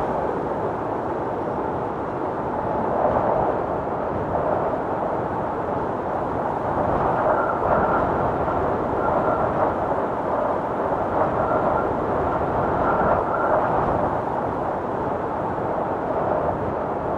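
Storm wind blowing hard in gusts that swell and ease, with a faint high whistle in some gusts.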